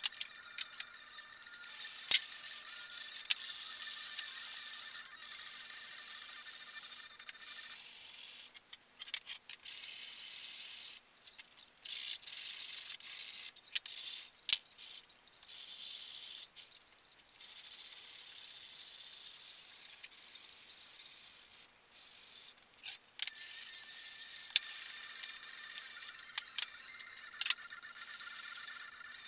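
Wood being hand-sanded with a sanding block: long runs of rasping strokes broken by short pauses, with a sharp click about two seconds in.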